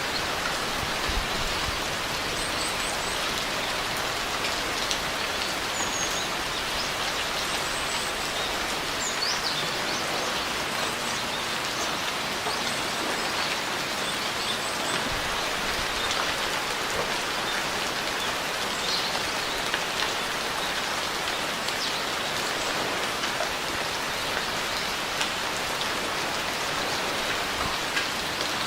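Steady rain falling and pattering on surfaces, an even hiss of many drops without let-up. A few faint high chirps sound in the first ten seconds or so.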